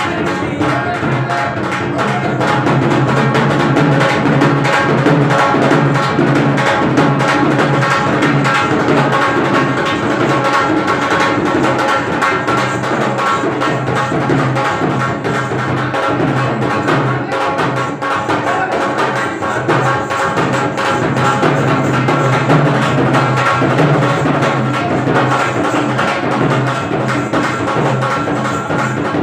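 Rajasthani kachchi ghodi folk dance music with busy, steady drumming and sharp clicking beats.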